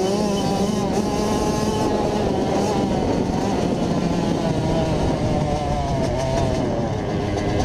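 A Kawasaki KX100 two-stroke dirt bike engine running under throttle at speed, its pitch wavering a little as the throttle changes.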